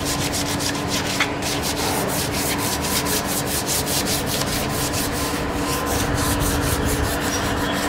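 Rapid rhythmic scraping strokes, about five a second, like hand filing or sanding, over a steady machine hum.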